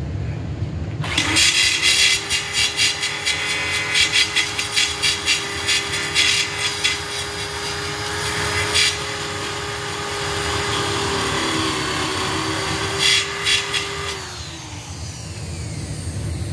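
Corded angle grinder with a small abrasive disc spins up to a steady whine and is pressed against a steel oil pan in repeated short passes, grinding the plating off around the drain-plug hole to prepare it for silicon-bronze TIG welding. The motor winds down near the end.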